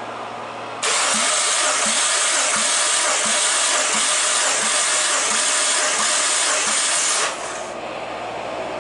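Mazda 3 (BK) 1.6-litre 16-valve engine cranked on its starter for a compression test of cylinder one: a loud steady hiss of air with a regular pulse about three times a second, one per compression stroke. It starts about a second in and stops suddenly about seven seconds in.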